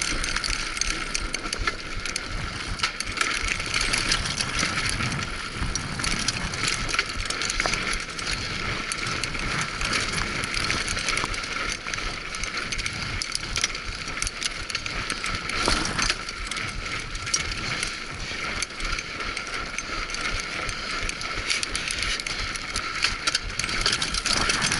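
Mountain bike descending a rough dirt trail: tyres running over dirt and loose stones, the bike rattling with many small knocks throughout.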